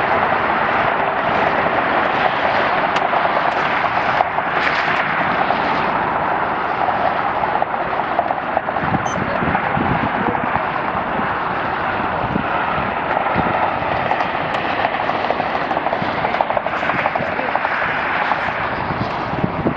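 Airliner jet engines running, a steady loud rushing noise with a rapid crackle through it.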